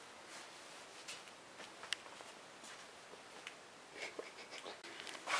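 Faint, scattered clicks and light handling noise, with one sharper click about two seconds in.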